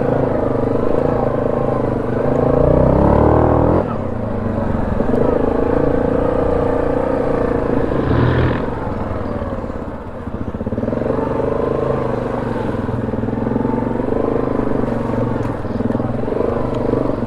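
ATV engine running under way, revving up with rising pitch about three seconds in and easing off just before four seconds, then running steadily with a brief lull around ten seconds.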